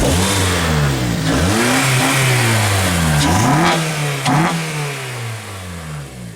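Acura TSX's K24 four-cylinder engine, fitted with an HPS cold air intake, revved in several quick blips, its pitch rising and falling repeatedly, then dropping back toward idle near the end.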